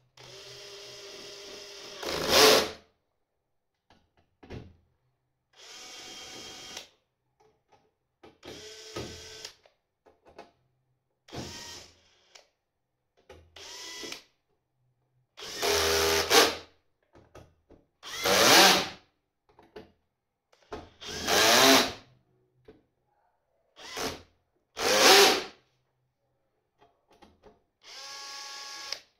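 Cordless drill-driver driving screws, in about ten short runs of its motor with pauses between; several runs end in a brief louder burst.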